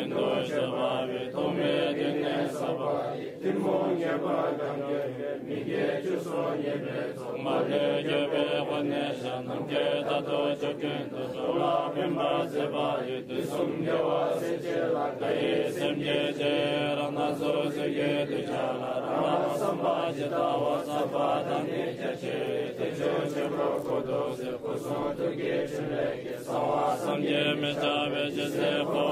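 Tibetan Buddhist chanting: a mantra or prayer recited in a continuous, steady chant.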